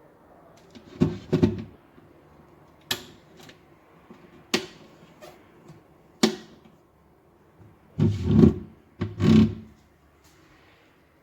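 A series of separate knocks and thumps from objects being handled and set down, several heavier thuds near the end; no motor is running.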